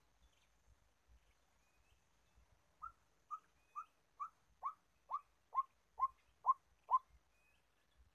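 White-breasted waterhen calling: a series of ten short notes, each dropping in pitch, about two a second, growing louder. The series begins about three seconds in.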